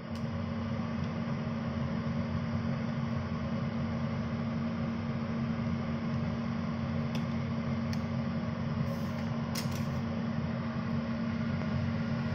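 A kitchen fan running with a steady low hum and even whirr. A few faint clicks come about seven to ten seconds in.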